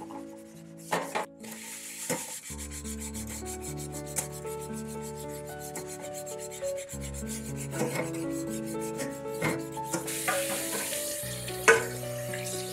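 Scrub sponge rubbing and scouring the inside of a stainless steel pot in repeated strokes, over soft background music. There is a sharp knock near the end.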